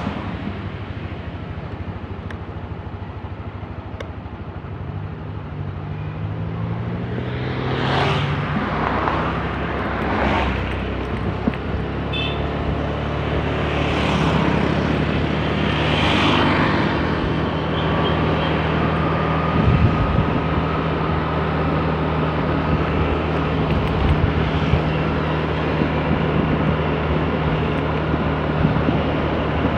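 Motor scooter engine running while riding along a road, its pitch climbing about five seconds in as it speeds up and then holding steady, with other traffic passing.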